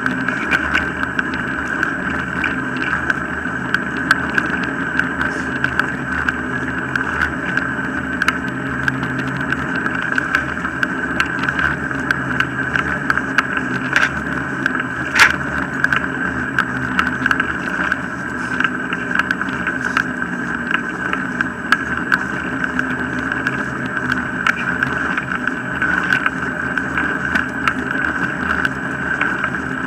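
Wheels of a dog-pulled rig rolling over a tarmac path, heard from a handlebar-mounted camera: a steady rolling rumble with a constant hum, many small rattles and clicks from the rig, and one sharper click about halfway through.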